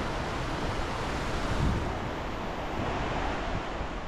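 Steady roar of rushing water from Takakkaw Falls and the glacial river below it, with wind gusting on the microphone about a second and a half in.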